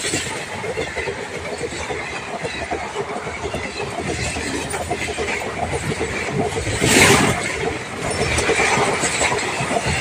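Passenger coaches of an Indian express train passing close by at speed, the wheels running over the rails with a rapid, steady clatter. There is a brief louder rush about seven seconds in.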